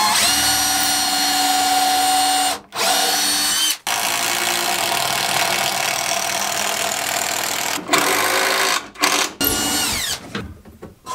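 Cordless drill boring into wooden framing, run in several bursts with brief stops between, its whine falling in pitch as it spins down near the end.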